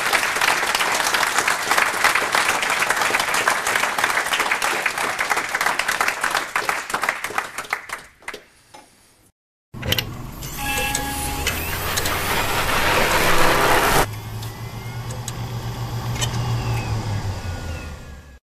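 Audience applause that thins out and stops about eight seconds in. After a brief gap, an electronic outro jingle follows, with a low steady hum under it; it changes abruptly partway through and cuts off at the end.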